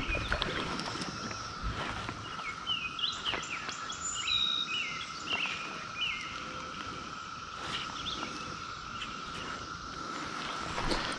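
Outdoor ambience of small birds chirping and singing over a steady, unbroken high insect drone; the bird calls are busiest in the middle of the stretch.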